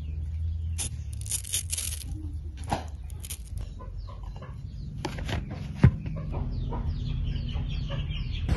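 Knife cutting through a ripe mango and slices being set on a plate: scattered clicks and scrapes, with one sharp click about six seconds in. Birds call in short repeated chirps in the background during the second half, over a steady low outdoor rumble.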